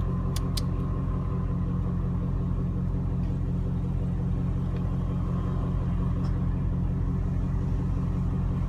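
Car engine running, heard inside the cabin as a steady low hum, with two faint clicks under a second in.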